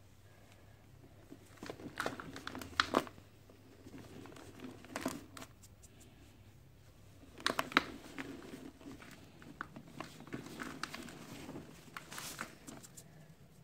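A dried cement ball being crushed by hand: crunchy cracking and crumbling in several spells, loudest about 3 s and 8 s in, with grit and powder sifting through the fingers into loose cement powder.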